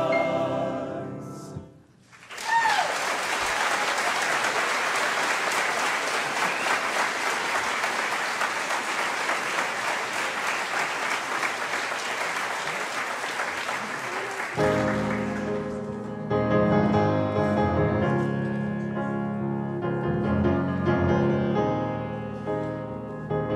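A choir's last held chord fades out, and after a brief pause the audience applauds, with a short cheer near the start, for about thirteen seconds. Near the end of the applause a piano starts playing the introduction to the next song.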